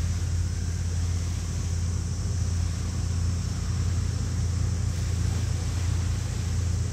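Abukuma-class destroyer escort JS Tone under way, its engines giving a steady low drone with an even hiss above it.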